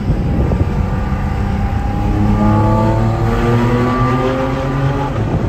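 Porsche 718 Cayman GT4 RS's naturally aspirated 4.0-litre flat-six accelerating, its revs climbing steadily for a few seconds, heard from inside the cabin while driving through a road tunnel.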